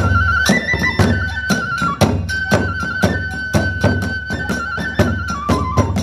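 Hiroshima kagura ensemble music: a bamboo transverse flute (fue) playing a high, ornamented melody over fast, even drum strikes, about three or four a second. The flute line steps down in pitch near the end.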